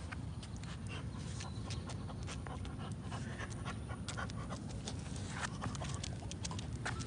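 French bulldog panting and sniffing, with many short clicks over a steady low rumble.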